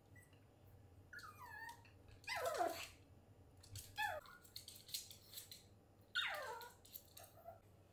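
Small poodle-type dog whining in several short cries that fall in pitch, the loudest about two and a half seconds in.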